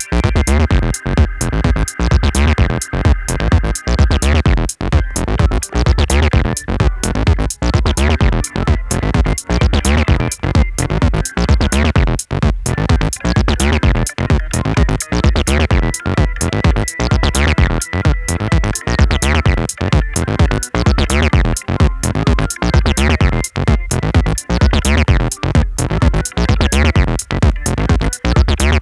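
Electronic instrumental music with a steady drum-machine beat and a heavy synth bass line, with sustained higher keyboard tones over it.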